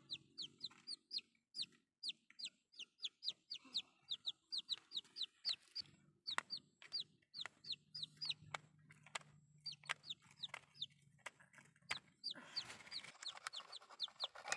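A chicken chick peeping over and over: short, high, falling peeps, about three a second, that stop about twelve seconds in. A soft rustling noise follows near the end.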